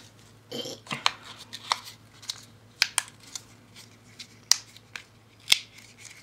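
Plastic blister packaging of an eyeshadow being pried and pulled apart by hand: a string of sharp, irregular crackling clicks, with the product glued into its card backing.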